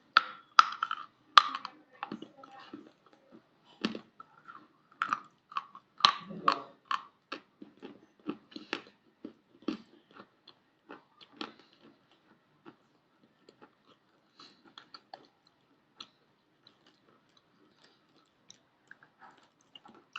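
Chalk being bitten and chewed in the mouth: a quick run of crisp crunches that grows sparser and fainter after about twelve seconds, ending in scattered faint clicks of chewing.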